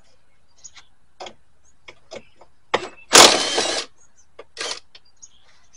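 Small hardware being handled by hand: a string of light clicks and taps, then a loud, harsh rustling rattle about three seconds in lasting under a second, and a shorter one about a second later.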